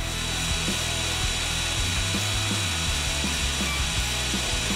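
Electric power tool running steadily on wood: an even, high hiss with a thin steady whine, starting abruptly, over background music with a beat.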